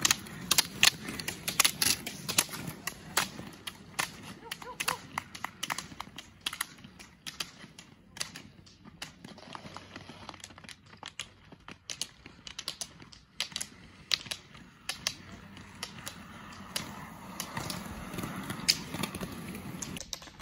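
Roller-ski poles' metal tips clicking on asphalt as roller skiers skate past, many sharp clicks in quick succession, with a low rumble of roller-ski wheels on the pavement. The clicks thin out in the middle and pick up again near the end as more skiers approach.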